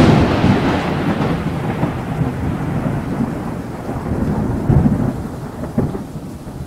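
Thunderstorm sound effect: a loud thunder crack at the start that fades into a long rolling rumble over a steady rain hiss, swelling briefly about five and six seconds in.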